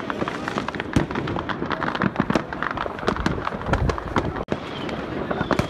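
Many fireworks and firecrackers going off across a city at once: a dense scatter of sharp bangs and pops, several every second, with a thin falling whistle near the end.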